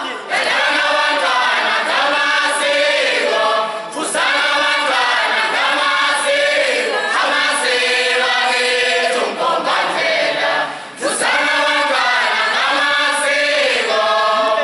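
A group of voices singing a song together without instruments, in phrases broken by short pauses every few seconds.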